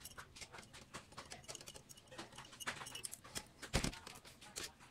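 Light, irregular clicks and taps of small metal parts as a Toyota 2E carburetor is being taken apart by hand, with one louder knock near the end.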